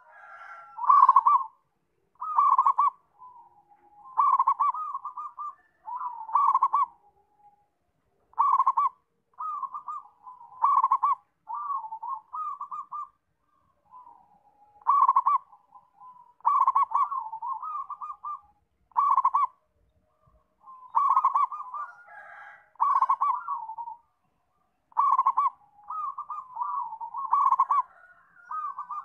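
Zebra dove (perkutut) singing its cooing song: short phrases of rapid, stuttering soft coos, repeated every one to two seconds.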